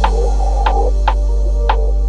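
Electronic background music: a steady low synth bass with a few sharp percussion hits.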